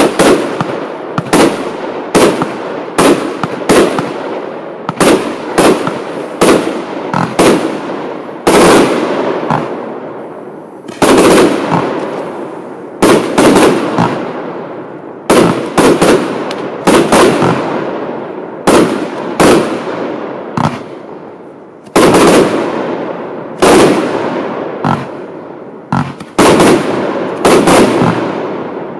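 Lesli 'The Undertaker' compound firework battery firing: a rapid series of sharp bangs, roughly one or two a second, each dying away over a second or so, with a couple of brief lulls.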